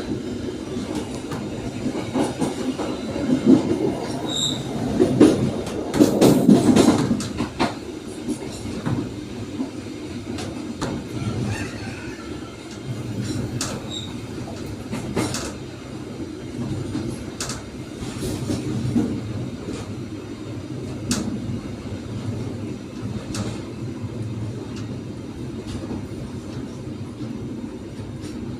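Passenger train running along the track, heard from the rear of the last carriage: a steady rumble of wheels on rail with irregular clacks over rail joints. It gets louder and rougher for a few seconds near the start, with a few brief high wheel squeaks.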